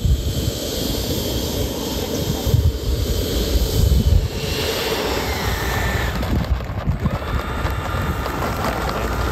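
Twin 80 mm electric ducted fans of a Freewing MiG-29 RC jet whining at low throttle while taxiing, the pitch shifting a few times as the throttle changes. Wind buffets the microphone with uneven low rumbles.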